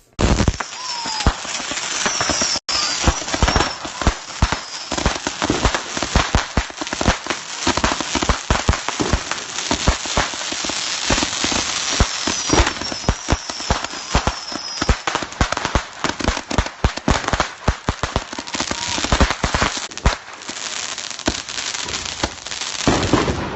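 A bundle of roman candles taped together firing at once: a continuous fizzing hiss packed with rapid, irregular pops as the balls launch, going for over twenty seconds.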